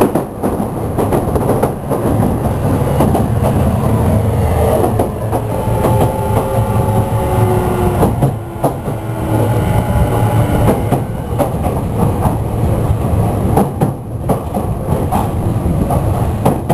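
Tokyu 5000 series electric train running, heard from inside the car: a steady rumble of wheels on rail with scattered clicks at the rail joints. For several seconds in the middle, a faint motor whine drifts slightly down in pitch.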